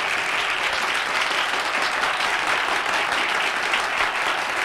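Live audience applauding a joke: dense, steady clapping.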